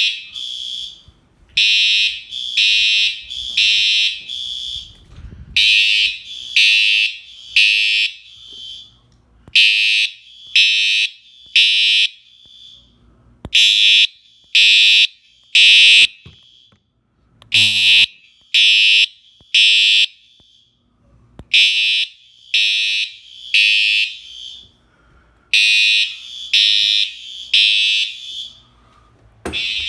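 Fire alarm horns sounding together on test: loud, high-pitched beeps of about half a second each, pulsing in short groups of three or so with brief pauses between. A lower, buzzier horn tone joins for a few pulses around the middle.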